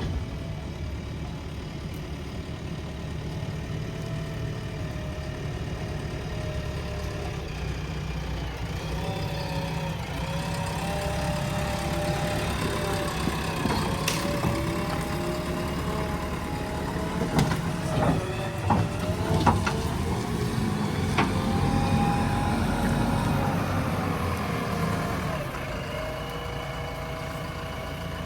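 JCB 3DX backhoe loader's diesel engine running, revving up under load from about eight seconds in, its pitch rising and falling, then dropping back to idle near the end. Several sharp knocks come at the busiest part of the work.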